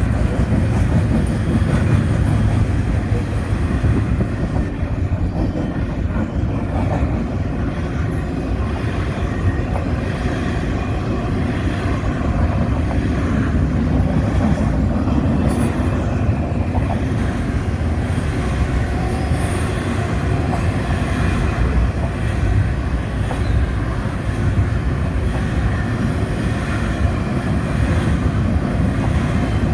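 Intermodal freight train rolling past, a steady loud rumble of steel wheels on the rails.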